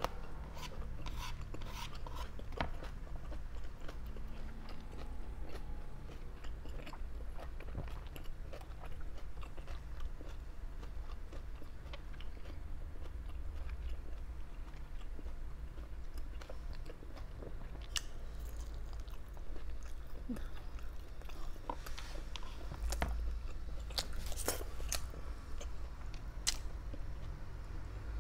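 Close-miked chewing and biting of grilled barbecue meat, with scattered sharp, crunchy clicks that come thickest in the second half, over a steady low hum.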